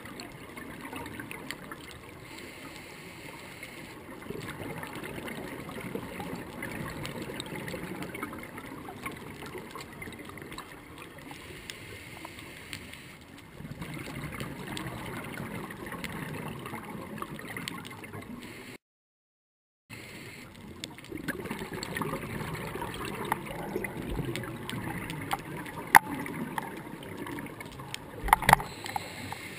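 Underwater ambience heard through a diving camera's waterproof housing: a muffled wash of water noise with bubbling gurgles that swell and fade every few seconds. The sound cuts out completely for about a second near the middle, and a few sharp clicks come near the end.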